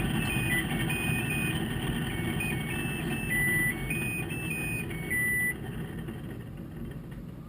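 Hitachi Big Drum washer-dryer playing its electronic beeping melody, a run of stepped notes with two longer held notes, over the low rumble of the running machine. The tune stops about five and a half seconds in, and the rumble then fades away as the machine winds down at the end of its cycle.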